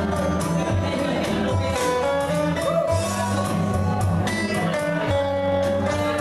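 Live band playing: electric guitar over drums and a low bass line, with a steady beat.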